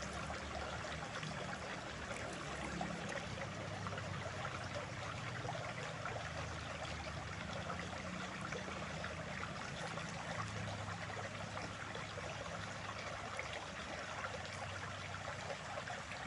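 Steady rush of running water from a stream, even and unbroken, with no distinct knocks or splashes.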